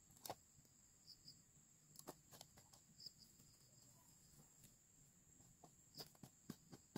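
Faint, scattered knocks of spices being crushed and ground in a small pan by hand, over a steady high drone of crickets.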